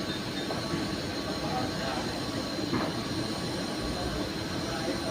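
Steady hiss and hum of a TIG welding arc with argon shielding gas, with a thin, constant high whine.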